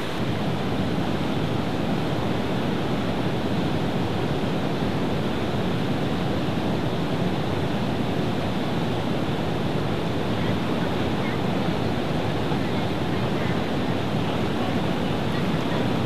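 Sea surf breaking and washing, a steady rushing noise of water with no let-up.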